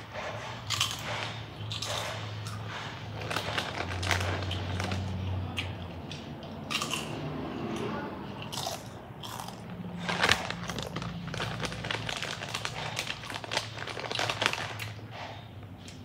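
Doritos tortilla chips being bitten and chewed: repeated crisp crunches, one after another.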